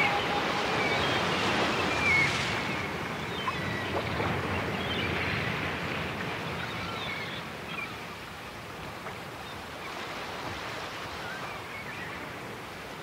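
Recorded ocean surf: a steady wash of waves with a few faint high chirps, slowly fading out.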